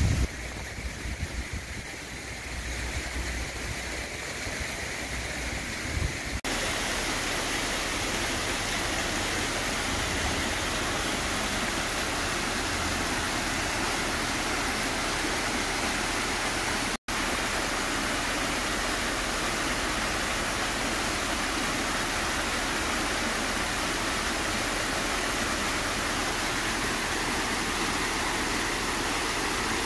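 Water splashing from bell-shaped fountain jets into a tiled pool. After about six seconds it changes to a fuller, steady rush of water pouring down the steps of a tiled cascade fountain, which cuts out for a split second near the middle.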